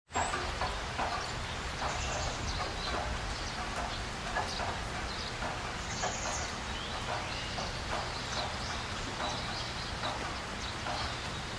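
Outdoor ambience: a steady background hiss dotted with many short chirps and ticks, such as birds.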